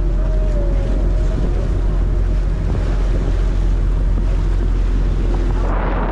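Boat running underway: a steady low engine rumble under heavy wind buffeting the microphone and water rushing past the hull. Near the end the rush of water grows louder.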